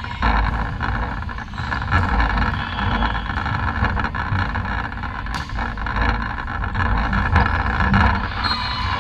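Reverberant sports-hall din during a volleyball rally: a steady low rumble and mixed noise, broken by a few sharp knocks of ball contacts.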